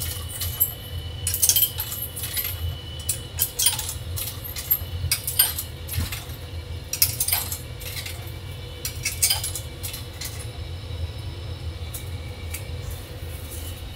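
Irregular light clinks and clatter, thinning out after about ten seconds, over a steady low rumble.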